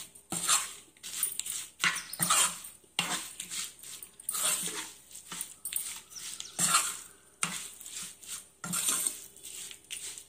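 Metal spoon scraping and stirring thick gongura-spinach chutney in a nonstick kadai, in repeated rasping strokes roughly one a second.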